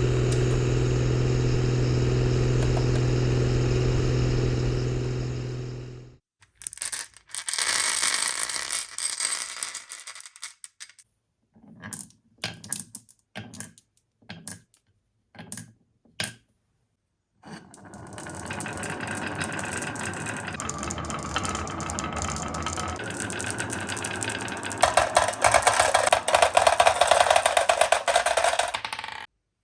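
A steady mechanical hum cuts off about six seconds in. Then come short bursts of marbles rolling and clicking along the course, and from about eighteen seconds a long continuous rolling rumble, with louder, dense clattering near the end.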